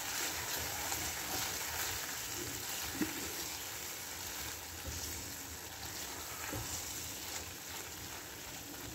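Chicken masala sizzling steadily as it fries in oil in a nonstick pan while a spatula stirs it, with a few faint taps. This is the bhuna stage, where the oil has separated and the masala is being fried until it dries onto the meat.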